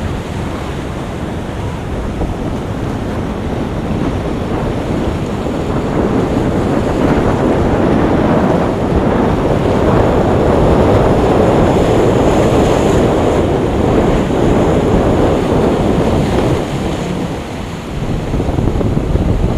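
Wind buffeting the microphone over the wash of surf, swelling louder midway and easing briefly near the end.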